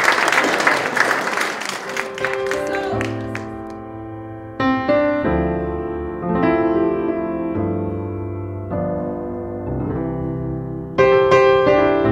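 Audience applause dying away over the first two seconds, then gentle piano music with chords struck every second or two.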